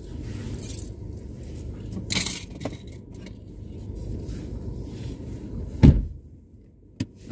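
Car engine idling, heard from inside the cabin, with metallic jingling twice in the first half. A heavy thump about six seconds in, after which everything goes much quieter, then two short clicks near the end.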